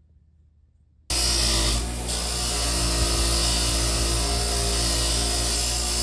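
About a second of near silence, then a bench grinder's spinning wire wheel cuts in abruptly and runs steadily, a low motor hum under the scratchy brushing of a steel knife blank held against the wheel.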